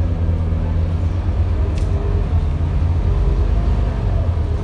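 Interior of a Scania K230UB city bus under way: the five-cylinder diesel engine and the running gear make a loud, steady low drone, with a faint hum whose pitch shifts slightly about three seconds in.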